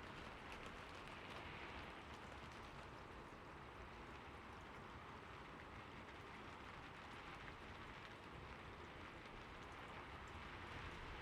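Steady rain falling: a faint, even hiss with fine scattered drop ticks and no thunder.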